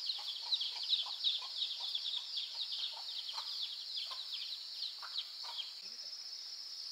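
Many short, high, falling chirps from birds in quick succession, a few each second. From about six seconds in they give way to a steady, fast-pulsing high insect trill.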